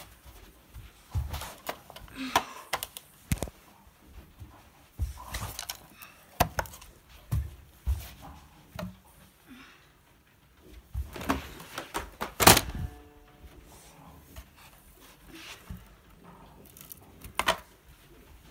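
Irregular knocks, thunks and short rattles of hard objects being handled, with the loudest knock a little past the middle.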